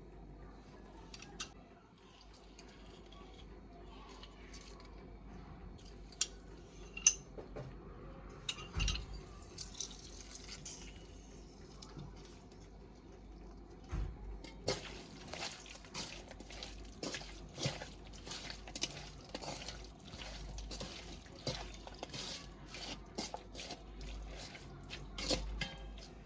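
Kitchen handling sounds: water dripping and splashing with irregular clinks of a bowl and utensils, sparse at first and growing busy about halfway through.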